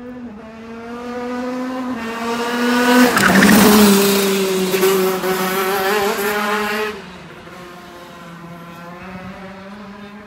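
Maxter KZ 125 cc two-stroke shifter kart engine running at high revs as the kart approaches and passes close by. The pitch drops as it goes past about three seconds in. The engine stays loud until it falls away suddenly near seven seconds, then carries on fainter as the kart moves off around the circuit.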